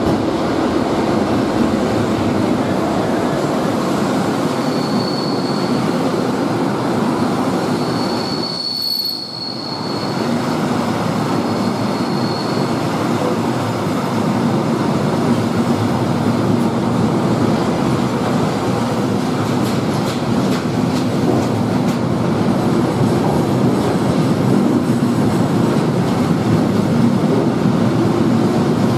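Diesel-hauled freight train passing close by: the locomotive goes by at the start, then a long line of open wagons rolls past, the wheels rumbling steadily on the rails. High wheel squeal sounds on and off from about five to thirteen seconds in, with a few clicks over rail joints later on.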